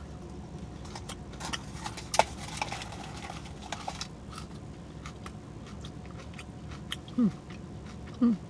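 Close-up wet chewing and lip-smacking on a breakfast burrito, with sharp mouth clicks, one louder than the rest about two seconds in. Near the end come two short sounds that fall in pitch.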